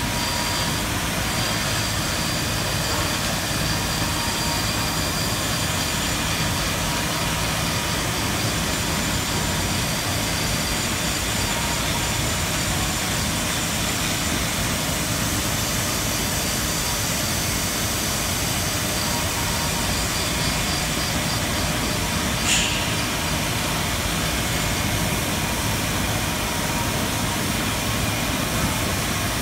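Steady, unbroken machine noise of a marble-carving workshop, from a hand-held pneumatic carving tool working the stone and the shop's extraction running. There is a single sharp tick about two-thirds of the way through.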